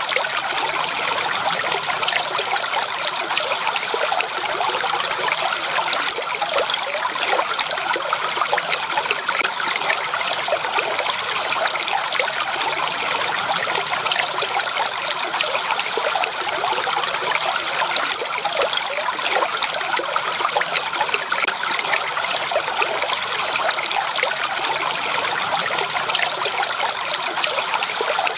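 Running water trickling and splashing over stones in a small stream, a steady, unbroken babble.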